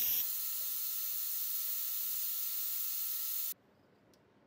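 Fog coolant spray nozzle hissing steadily as it sprays a mist of jet oil, with a faint thin whistle in it. The hiss cuts off suddenly about three and a half seconds in.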